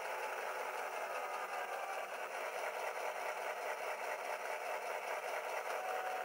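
Simulated EMD 567 diesel prime mover sound from a Soundtraxx Tsunami decoder in an H0 scale GP7 model, running steadily through the model's small speaker, thin with no low end.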